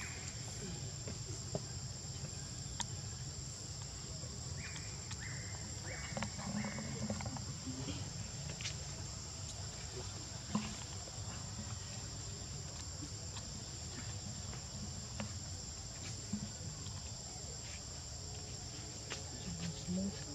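Steady, high-pitched drone of an insect chorus, with a few short faint calls about five to seven seconds in and scattered small clicks.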